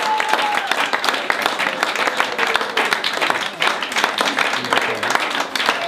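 Audience applauding, a dense, steady patter of many hands clapping, with voices calling out over it near the start.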